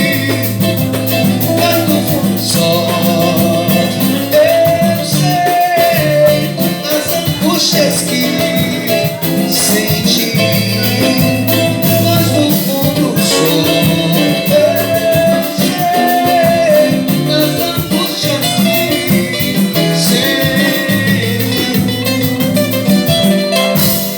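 A live band playing a Brazilian romantic song, with plucked strings, bass, percussion and singing.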